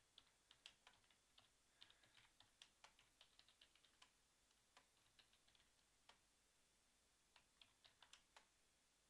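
Faint typing on a computer keyboard: a quick run of keystrokes, then a few scattered ones and a brief pause, then another short run near the end.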